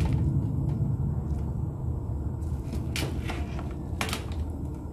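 Steady low rumble of a lit stove burner heating a steamer pot of rice, with two sharp knocks about three and four seconds in.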